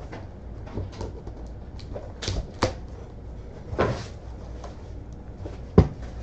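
Cardboard card box and packaging handled on a table: a scattered series of knocks, taps and rustles, with the loudest thump near the end.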